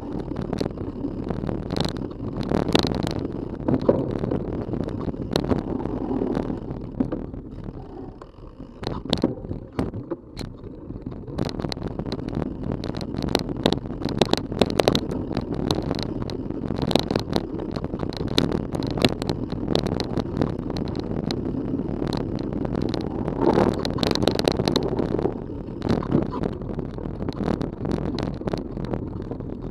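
Rocky Mountain Element 930 mountain bike rolling down a rough dirt singletrack, heard through a camera strapped to the bike: a steady rumble of tyres and frame with frequent sharp rattles and knocks over bumps. It eases and goes smoother for a few seconds about eight seconds in, then picks up again.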